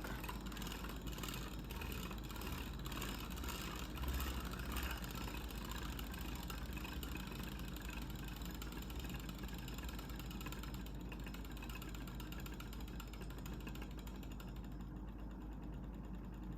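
Metal Fight Beyblade Storm Pegasis 105RF spinning in a plastic stadium: a steady whirring rattle from its rubber flat tip running on the stadium floor. It slowly dies down as the top loses speed, its brighter part fading near the end; the rubber flat tip gives it little stamina.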